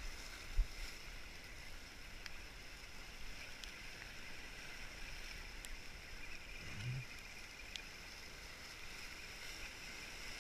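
Steady wash of sea surf over rocks, with a few faint clicks and a low knock about half a second in.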